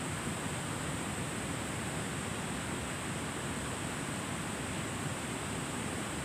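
Steady rushing of river water over a shallow, rocky stretch.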